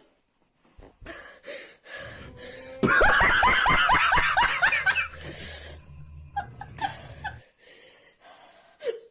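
A person laughing hard in a quick run of repeated bursts about three seconds in, with shorter giggles and breathy sounds before and after.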